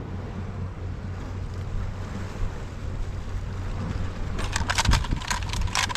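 Steady wind and sea noise rumbling on the microphone. From about four and a half seconds in comes a quick run of sharp clicks and clinks, like small metal tackle being handled.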